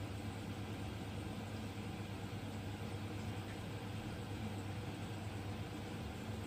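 Reef aquarium's circulation pumps running: a steady low hum over an even hiss.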